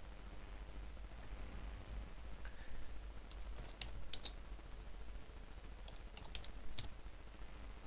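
Keystrokes on a computer keyboard, typed slowly: scattered single key clicks, mostly in two short runs, over a faint low hum.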